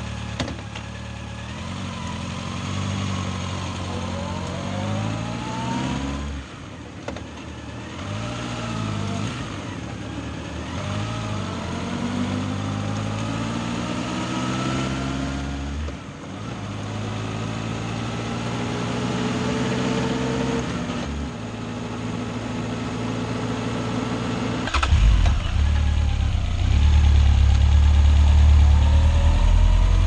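2014 Honda CB1100's air-cooled inline-four engine pulling away and accelerating through the low gears, several times over: the pitch climbs, drops at each shift and climbs again. About 25 s in there is a sharp knock, after which a louder low rumble takes over.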